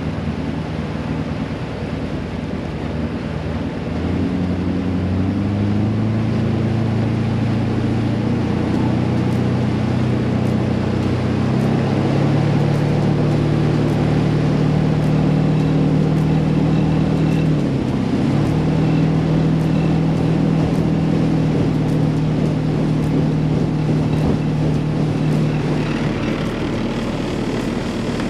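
Ski boat's inboard 350 cubic-inch Chevy V8 accelerating under throttle over the rush of water, its note climbing over the first several seconds and then holding at a steady cruise. About two-thirds of the way in there is one brief dip in revs, and near the end the engine note drops away.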